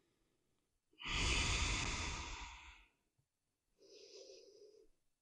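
A woman's breathing: one long, audible breath, then a shorter, fainter breath near the end, taken slowly while she holds a yoga pose.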